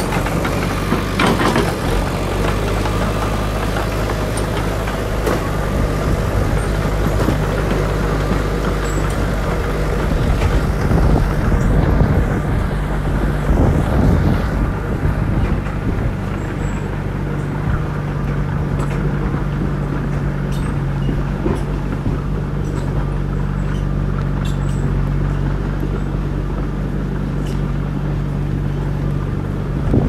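Small crawler bulldozer's diesel engine running steadily under load as it pushes through brush, working harder for a few seconds near the middle, with occasional sharp cracks.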